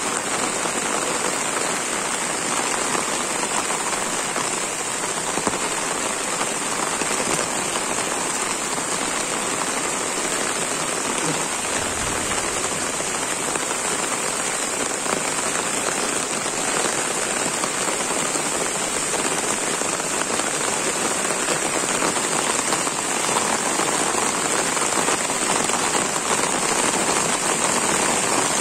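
Steady heavy rain falling on leaves, grass and a muddy path, an even continuous patter.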